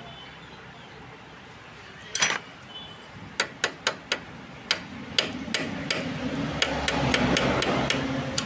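Repeated sharp metallic taps and knocks, about a dozen at uneven intervals, starting about two seconds in, like a tool striking metal. A low noisy hum builds beneath them from about five seconds in.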